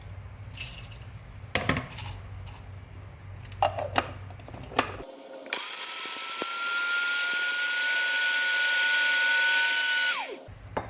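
A few clicks and knocks, then about halfway in an electric blender starts and runs steadily for about five seconds, grinding dry-roasted whole spices into garam masala powder, before it shuts off.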